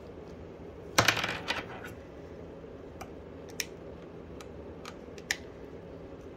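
Plastic spudger prying at the internals of an opened Samsung Galaxy S10 Plus: a short burst of crackling clicks about a second in, then a few light isolated clicks and taps, over a faint steady hum.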